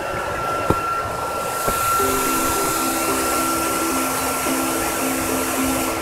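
Steady rushing roar of a large waterfall, with a few light knocks in the first two seconds.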